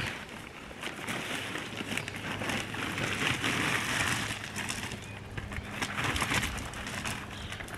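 Loose gravel being tipped and scraped into place under a shipping container's corner, the stones crunching and rattling irregularly.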